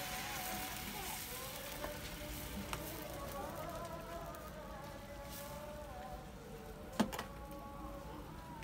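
Soft background music over eggs sizzling in a frying pan on a gas burner as they are stirred. A sharp knock about seven seconds in.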